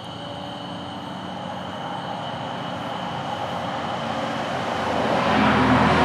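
A motor vehicle approaching, its noise growing steadily louder, with a low engine hum coming in near the end.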